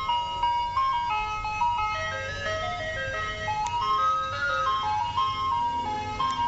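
Ice cream truck jingle: a simple single-line melody playing from the truck, stepping note by note, over steady low background noise.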